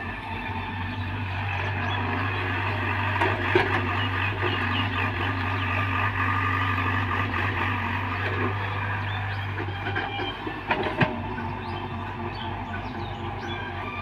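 Hyundai 85A mini excavator working: its diesel engine runs steadily under load, with a high hydraulic whine over it as the boom and bucket dig and swing soil. There are two sharp knocks, about three and a half seconds in and again near eleven seconds.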